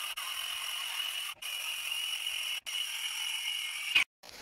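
Cordless circular saw running and cutting through a softwood joist, a steady high whine broken by a few brief gaps.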